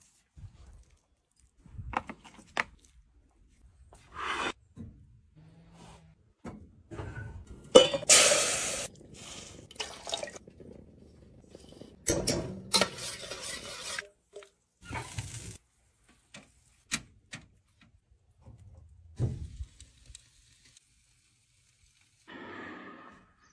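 A string of short cooking-prep sounds: clinks and knocks of dishes and a metal pot, handling of food, and seasoning poured into sauce in the pot. The loudest bursts come about eight seconds in and around twelve to fourteen seconds, with a brief squeak near the end.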